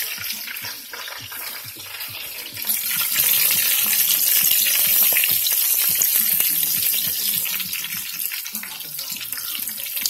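Whole porgies deep-frying in a pot of hot oil: a steady crackling sizzle that grows louder about three seconds in.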